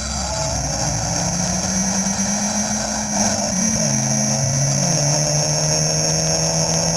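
Two cars launching off the line in a quarter-mile drag race and accelerating away down the strip, their engine notes rising and dropping in steps as they gain speed.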